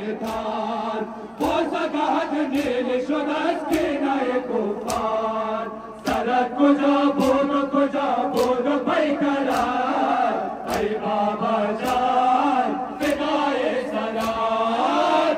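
Male mourners chanting a Shia noha (mourning lament) together, with a sharp strike about once a second in time with the chant: the beat of matam, hand-on-chest mourning.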